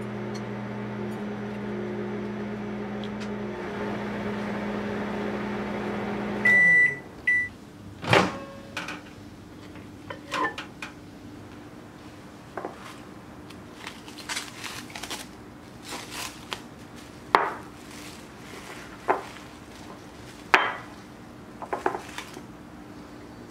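Daewoo microwave oven running with a steady hum that winds down and stops about six seconds in, followed at once by two beeps as the cycle ends. A sharp click follows as the door opens, then scattered light clicks, knocks and crinkles as a plate is handled and its plastic wrap is removed.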